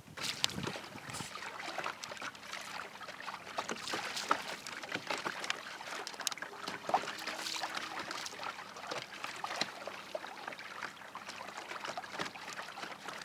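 Small waves on choppy lake water lapping and splashing against the hull of a small fishing boat, a continuous patter of small splashes.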